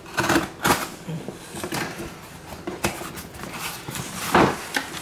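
Cardboard shipping box being handled and opened on a granite countertop: a string of short rustles, scrapes and knocks of cardboard, loudest just after the start and again near the end.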